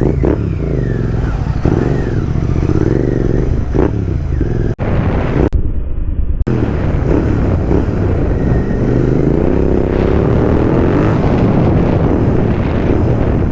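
Royal Enfield GT650's parallel-twin engine running through a loud exhaust while riding, its pitch wavering with the throttle and then rising steadily as it accelerates about nine seconds in.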